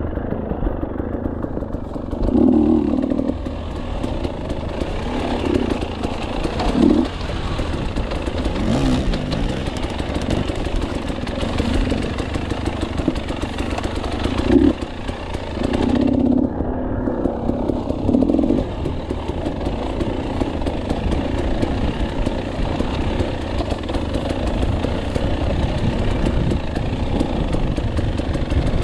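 KTM 300 two-stroke enduro motorcycle engine running while trail riding, the throttle opened in repeated short bursts of revving between steadier running.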